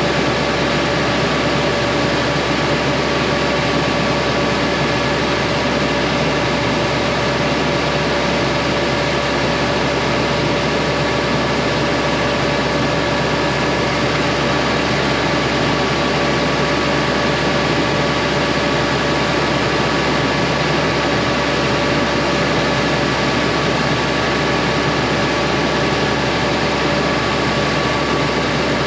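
Crop sprayer's engine running steadily at a constant speed: a dense, even drone with a few steady humming tones on top, unchanging throughout.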